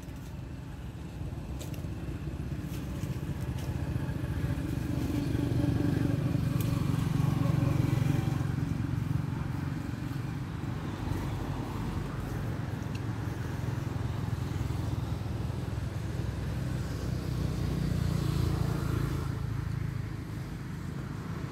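A motor vehicle's engine rumbling nearby, growing louder about a quarter of the way in and again near the end, like vehicles passing.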